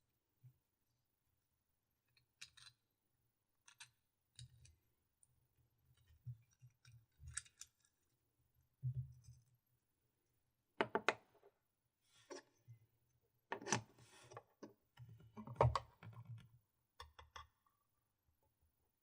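Close-miked handling of GoPro Hero 4 Silver packaging and parts: scattered small clicks, taps and brief crinkly rustles, with three louder handling bursts about halfway through and shortly after.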